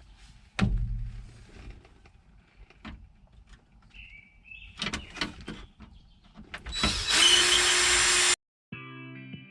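Knocks and clicks of parts being handled while a truck's steering column and dash are taken apart, with a heavy thump about half a second in. About seven seconds in a power drill runs steadily for about a second and a half, then cuts off abruptly, and music comes in just before the end.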